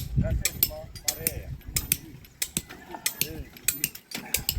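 Irregular sharp clicks and knocks, several a second, loudest in the first second.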